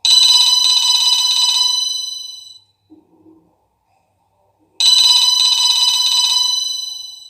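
New Nokia 3310 ringtone in the style of a ringing telephone bell: two rapid trilling rings of about two and a half seconds each, each fading away, about two seconds apart.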